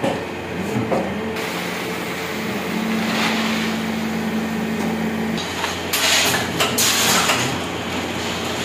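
Steady machine hum of a plastic injection moulding workshop, with brief noisy bursts about three seconds in and again around six to seven seconds.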